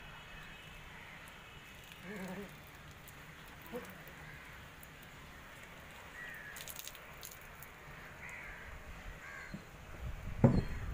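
Crows cawing a few times. Near the end, a sharp knock as the metal cabinet is set down on top of the wall.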